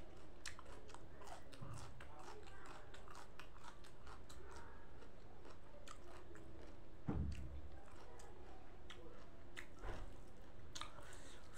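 Close-up chewing of food with wet mouth clicks and crunches, interrupted by a dull low thump about seven seconds in and a smaller one near the end.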